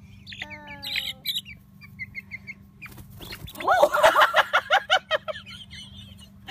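Chickens clucking and chirping softly, then a loud flurry of wing flapping and squawking from about three and a half seconds in as a hen flies up and lands on a small child's head.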